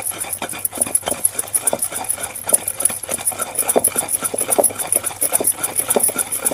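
Wooden pestle pounding and mashing a thick, wet tamarind-and-red-chilli paste in a stone mortar, soft dull thuds coming a couple of times a second. A fast, even ticking runs behind it.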